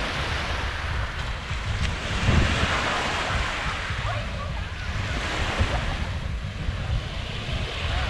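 Small waves washing on a sandy beach, with a wash swelling about two and a half seconds in. Wind buffets the microphone.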